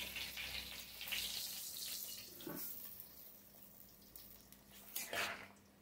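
Taro and potato curry simmering in a steel kadai, a soft bubbling of the gravy that fades over the first few seconds, with a short knock about five seconds in.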